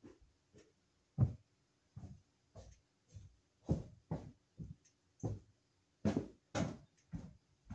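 Footsteps on the wooden floor overhead, heard from the basement below: a run of dull thumps, about two a second.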